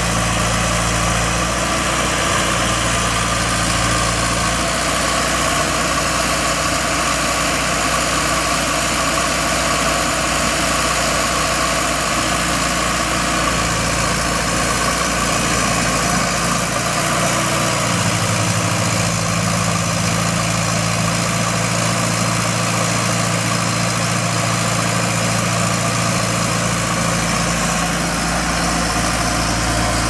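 Cummins four-cylinder diesel engine of a 2009 Bomag BF815 tracked asphalt paver running steadily at idle, with a constant hiss above the engine note. The low engine tones shift about 18 seconds in.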